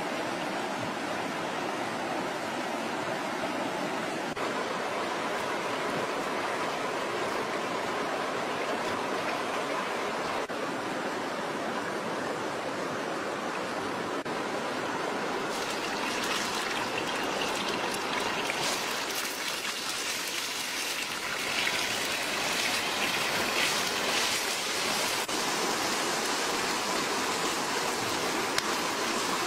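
Steady rushing noise, with dense crackling joining it about halfway through.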